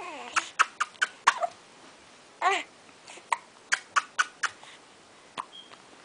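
A person making quick mouth clicks to a baby: a dozen or so sharp clicks in two runs. A falling vocal sound comes at the start, and a short wavering coo comes about two and a half seconds in.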